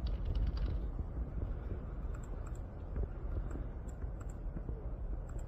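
Low steady background rumble with a few faint, scattered clicks of a computer keyboard in use.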